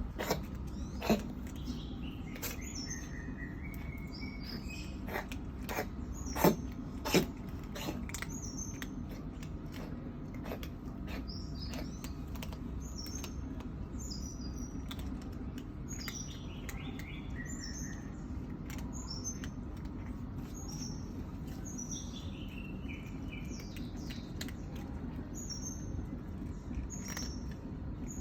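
Small birds chirping repeatedly in the background, with a few falling calls, over a steady low background noise. A few sharp, short sounds stand out: one about a second in and two close together around six to seven seconds in.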